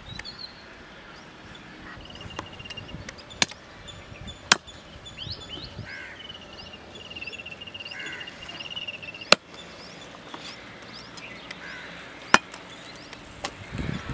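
Cleaver chopping rabbit meat on a wooden board: about five sharp chops, spaced unevenly a second or a few seconds apart. Birds chirp in the background.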